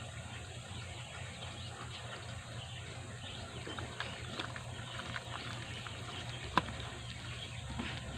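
Faint clicks and soft scraping of chicken gizzards being mixed into a wet flour and crispy fry batter in a bowl, with one sharper click about six and a half seconds in, over a steady low hum.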